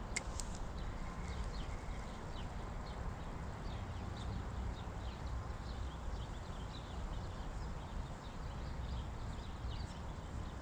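Spinning reel being cranked on a slow retrieve: a faint, even ticking about twice a second over a low rumble, with two sharp clicks right at the start.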